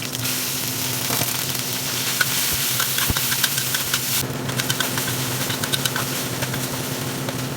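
Minced pork, ginger and garlic sizzling in a hot pan as they are stir-fried, with a spatula clicking and scraping against the pan; the hiss of the frying eases a little about four seconds in.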